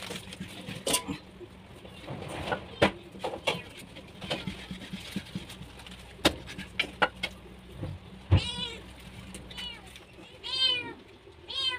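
Cleaver chopping a raw chicken on a wooden block: sharp knocks at uneven intervals. From about eight seconds in, a cat meows four or five times.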